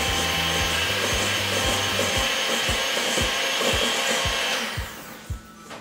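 Electric hand mixer running steadily, its beaters churning a thick batch of creamed butter and sugar for cookie dough, with a constant whine over the motor noise. It switches off about five seconds in.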